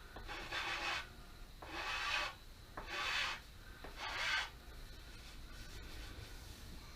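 Four scraping strokes of a hand tool across an aspen walking stick, about one a second, shaving down the last high spots; then the strokes stop.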